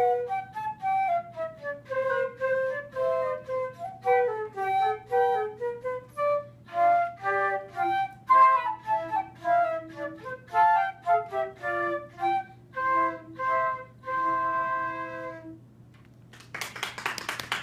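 Two concert flutes playing a duet, two melodic lines moving together, ending on a long held chord about fifteen seconds in. A moment later applause breaks out near the end.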